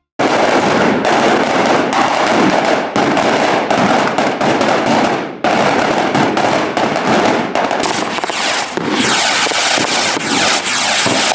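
String of firecrackers going off in a rapid, continuous crackle of loud bangs, briefly dropping away about five seconds in before the crackling resumes.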